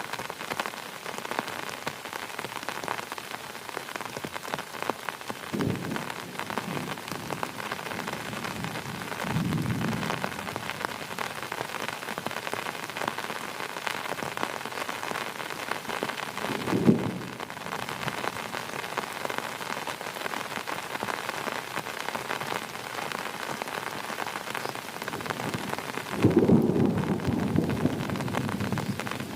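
Heavy rain falling steadily, with thunder: short rumbles about 6, 10 and 17 seconds in, and a louder, longer rumble about 26 seconds in.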